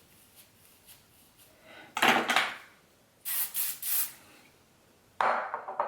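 Teasing brush back-combing hair at the root: a loud rasping stroke about two seconds in, a quick run of three or four short hissy strokes a second later, and another rasp near the end.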